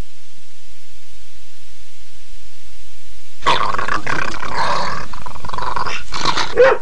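A faint hiss, then about halfway through a dog breaks into loud, rough growling and snarling that ends in a sharp bark near the end.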